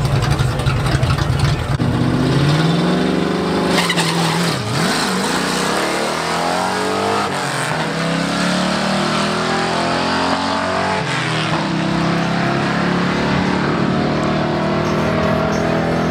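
Drag-racing vehicles launching and accelerating hard down the strip: a heavy engine rumble at first, then engine notes climbing in pitch and dropping back at each gear shift, about twice.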